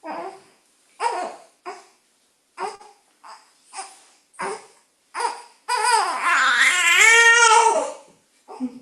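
A high-pitched voice making short babbling sounds every second or so, then one long wavering wail lasting about two seconds near the end.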